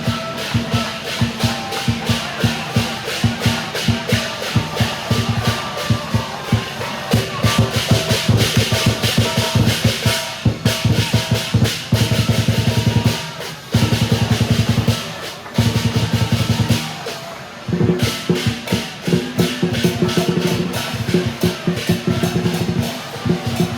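Fast, loud drumming in a steady rhythm with some sustained ringing tones over it, broken by a few short pauses near the middle.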